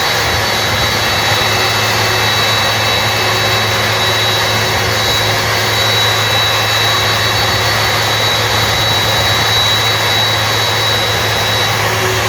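Boeing 767-300F's jet engines running steadily: loud, even noise with a high whine held on one pitch.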